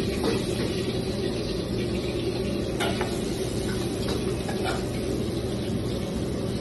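Steady restaurant-kitchen din: a constant hum and rush from the kitchen's fans and stoves, with a few light clicks and taps of utensils and takeout containers.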